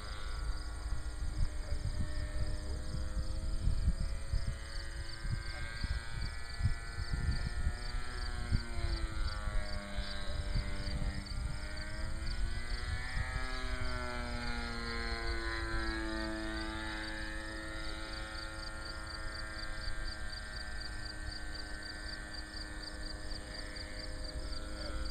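Two-stroke glow engine of a radio-controlled model airplane droning in flight, its pitch sliding down and back up as the plane passes and the throttle changes. Wind buffets the microphone in gusts, heaviest in the first half.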